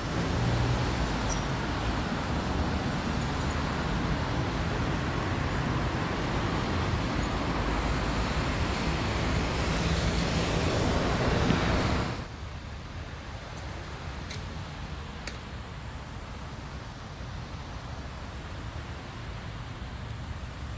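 Street traffic noise that grows louder for about twelve seconds, then cuts off abruptly to a quieter, steady background hum with a couple of faint ticks.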